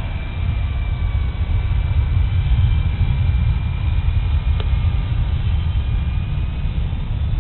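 Electric motors and propellers of an RC foam V-22 Osprey bicopter running in flight: a faint high whine that drifts a little in pitch, under a heavy low rumble. A single sharp click comes about four and a half seconds in.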